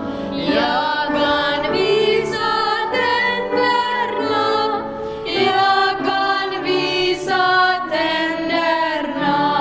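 A boys' choir singing a song together, several young voices in unison and harmony.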